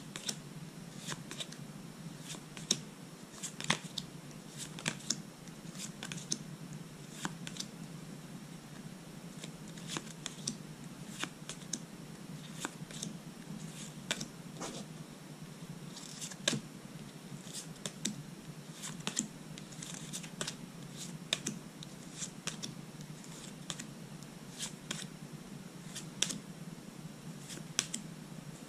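Trading cards being flipped through by hand, each card slid off the front of the stack and tucked behind: irregular sharp card snaps and slides about every second or so, over a steady low hum.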